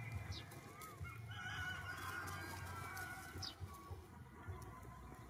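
Domestic fowl calling: one long pitched call starting about a second in and lasting about two seconds, with a few short high chirps around it.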